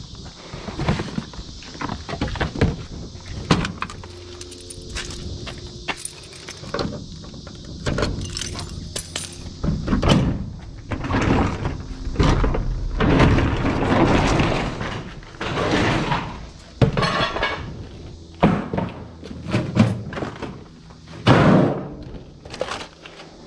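Irregular clattering, knocking and jangling of scrap and debris being handled and tossed about. The noise is sparse at first and becomes busier and louder from about a third of the way in.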